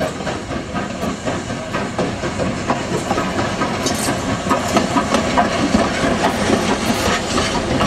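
Steam locomotive moving slowly past close by, steam hissing from around its cylinders, with short clanks and knocks from its running gear and wheels on the rails.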